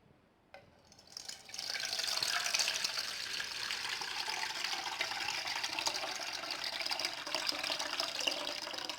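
A litre of water pouring steadily into a cooking pot, beginning about a second in.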